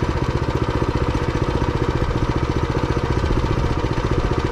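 Small dirt bike engine idling steadily, an even, rapid putter with no revving.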